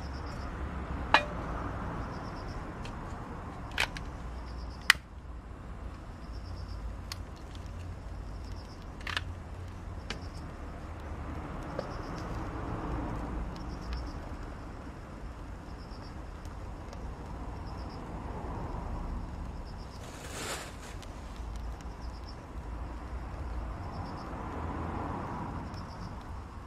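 Small twig fire catching in a folding wood-burning stove, with a few sharp crackling pops in the first ten seconds over a steady low rumble. A brief burst of noise comes about twenty seconds in.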